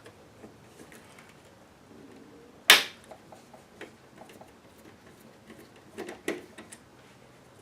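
Small metal clicks and knocks from handling a car stereo head unit's metal chassis, screws and a screwdriver during disassembly. One sharp knock comes about three seconds in and two more near the six-second mark, with lighter ticks between.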